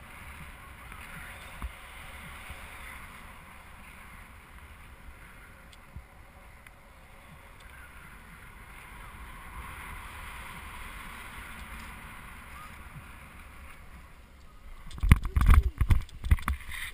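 Wind rushing over a GoPro's microphone in paragliding flight, a steady hiss. Near the end it turns into heavy, irregular buffeting on the microphone.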